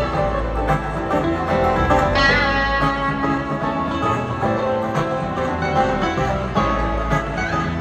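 Bluegrass band playing live in an instrumental stretch, with picked guitar to the fore, heard from far back in an arena audience.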